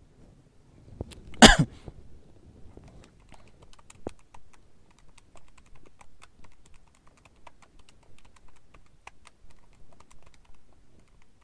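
A man coughs once, about a second and a half in. Then comes a long, uneven run of light clicks from the keys of a handheld calculator being pressed.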